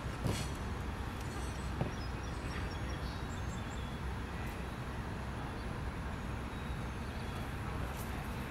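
Steady low rumble of distant road traffic, with a sharp knock just after the start and a smaller one about two seconds in.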